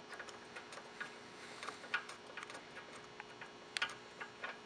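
Faint, irregular small metal clicks and ticks of a locking-bracket screw being turned by hand against a TV lift's metal mounting bracket, with a sharper click about two seconds in and another just before four seconds.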